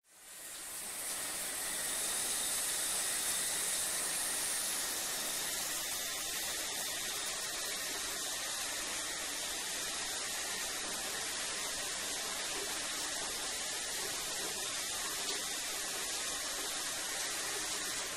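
Shower running: a steady hiss of falling water spray, fading in over the first second or so, a little brighter and hissier for the first few seconds before it settles.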